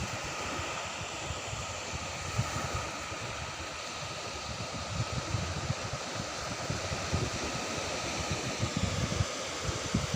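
Wind buffeting the microphone in irregular low gusts over a steady rush of surf on the beach.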